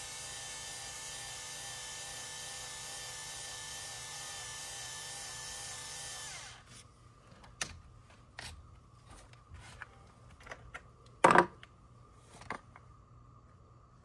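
Navac battery-powered flaring tool's motor running steadily as it flares the end of a 3/4-inch copper refrigerant line, winding down and stopping about six and a half seconds in. Light handling clicks follow as the tool is taken off the pipe, with one sharp knock, louder than the motor, a few seconds later.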